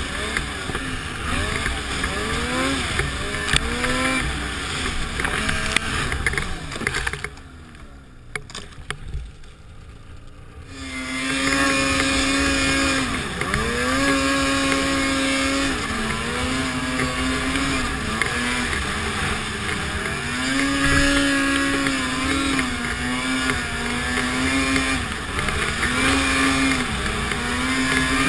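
Snowmobile engine running through deep powder, its pitch rising and falling with the throttle. About seven seconds in it falls away to a low level for around three seconds, then comes back on hard and holds high revs with short dips.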